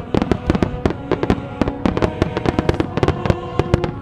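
Aerial fireworks shells bursting: a rapid, uneven run of sharp bangs and crackles, several a second, with music playing underneath.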